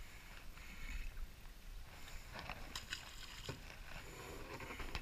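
Faint, even wash of water and breeze around a small boat on open sea, with a few light clicks and knocks about halfway through.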